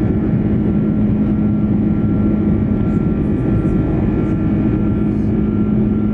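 Airbus A330-300 jet engines running with a steady, loud drone: a low hum and a thin whine held level.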